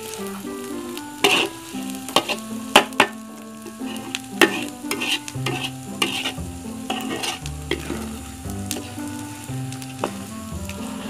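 A metal spatula scrapes and knocks against a wok as thick, nearly dry rendang is stirred and fried, with irregular strokes over a steady sizzle.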